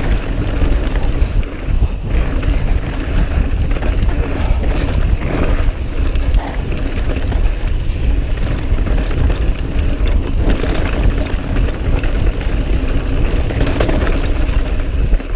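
Wind buffeting the microphone and knobby tyres rolling over loose, dusty dirt as a mountain bike descends at speed, with frequent clicks and rattles from the bike over the bumpy trail.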